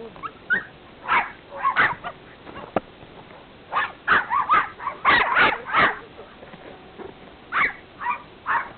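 A dog barking and yipping in short bursts: a couple near the start, a quick run of about six in the middle, and two more near the end.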